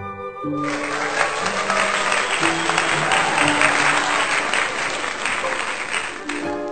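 Audience applauding over music. The clapping starts about half a second in; the music's notes carry on beneath it and come forward again near the end.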